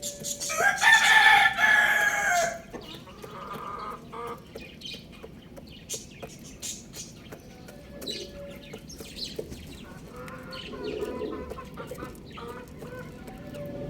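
A rooster crowing once, a loud drawn-out crow of about two seconds near the start, followed by quieter clucking and short calls from chickens.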